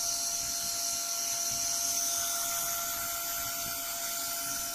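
Small cooling fan on the laser diode module running steadily: a constant whine over an even airy hiss.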